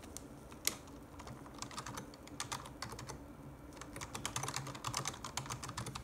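Keys of a computer keyboard being typed, entering a password: a single key click just under a second in, then short runs of quick keystrokes, quickest and densest over the last two seconds.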